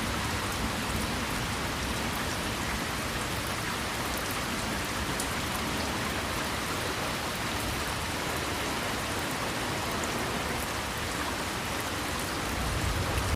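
Heavy rain falling steadily on a car: an even, unbroken hiss with fine ticks of individual drops.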